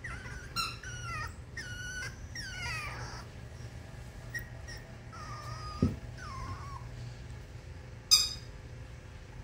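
Miniature dachshund puppy whining in a run of high, wavering whimpers, then again more briefly midway. A short thump comes about six seconds in, and a brief sharp high-pitched sound about eight seconds in is the loudest moment.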